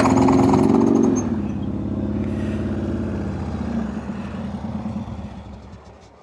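Harley-Davidson Sportster V-twin running through a Cobra El Diablo 2-into-1 exhaust. The revs drop back to idle about a second in, then the engine dies away near the end.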